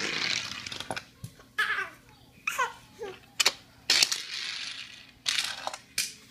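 Toy trains dropping off a wooden tabletop and hitting the floor with a few sharp knocks, the loudest two close together about three and a half seconds in, between a baby's short laughs and breathy giggles.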